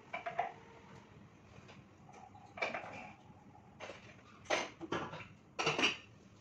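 Kitchenware being handled on a counter: several separate clinks and knocks in short bursts, the loudest two near the end.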